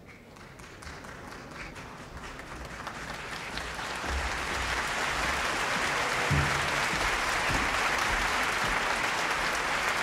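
Audience applause that grows from faint to loud over the first four seconds, then holds steady.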